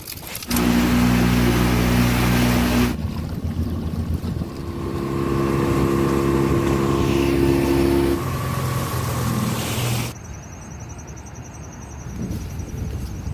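Engine running steadily, heard in several stretches that change abruptly, then dropping to a quieter background about ten seconds in.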